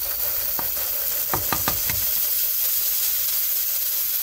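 Toasted sesame seeds pouring into a plastic blender jar: a steady hiss of small seeds pattering onto the jar and the liquid in it, with a few light clicks between one and two seconds in.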